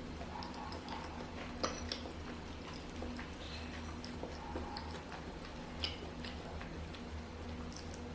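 Close-up chewing of sticky glutinous eight-treasure rice: soft, wet mouth and lip sounds with small clicks, and two sharper clicks about a second and a half in and near the end, over a steady low hum.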